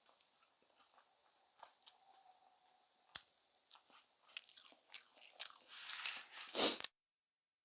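Close-miked chewing and mouth sounds of someone eating, with scattered small clicks and one sharp tap about three seconds in. The sounds grow busier towards the end, then cut off abruptly.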